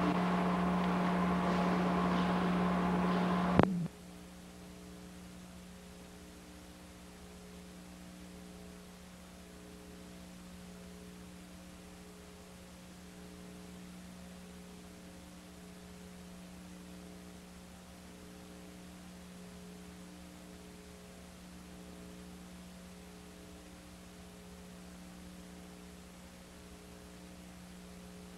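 Faint room sound of a large hall over a steady hum, cut off by a sharp click about three and a half seconds in. After that there is only a steady electrical hum with a faint, evenly pulsing tone, the sound of the blank tape after the VHS recording ends.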